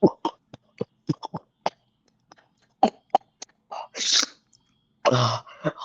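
A person making a string of short, sharp vocal noises, cough-like, with a hissy sneeze-like burst about four seconds in and a louder burst near the end.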